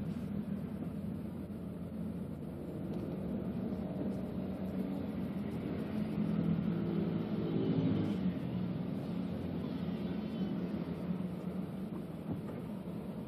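Steady low rumble of a car's engine and road traffic heard from inside the cabin in slow-moving traffic, swelling a little about six to eight seconds in.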